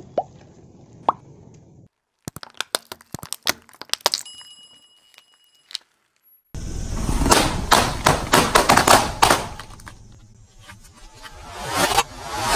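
Objects crushed under a slowly rolling car tyre: a run of sharp cracks and crunches, with a longer loud stretch of crushing noise in the middle. Near the end a cluster of balloons burst with sharp pops as the tyre presses down on them.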